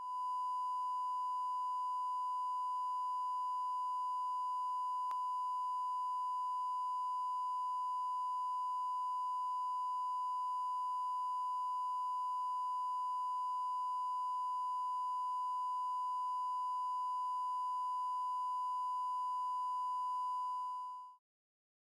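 Steady 1 kHz broadcast line-up test tone played with colour bars: one unbroken pure tone that cuts off near the end.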